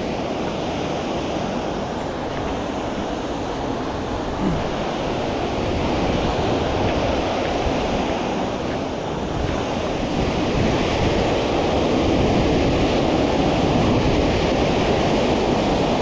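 River rapids rushing steadily: a dense whitewater roar that grows a little louder over the second half.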